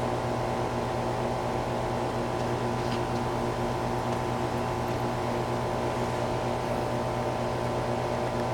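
A steady machine hum with several fixed tones, unchanging in pitch and level.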